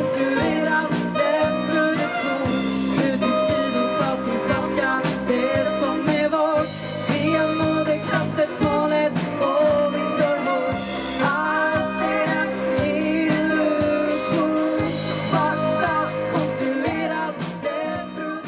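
Live band playing: a woman singing over electric bass, electric guitar, keyboard and drums. The music drops away and cuts off right at the end.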